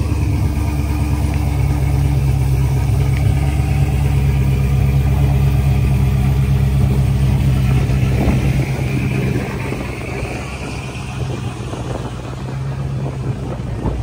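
Car engine running with a steady low drone, easing off about nine seconds in.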